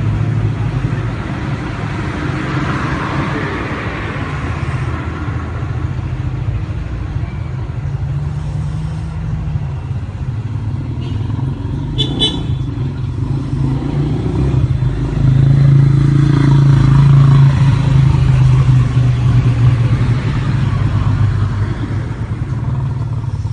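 Steady low engine rumble of motor traffic, swelling louder for several seconds in the second half, with one sharp click about halfway through.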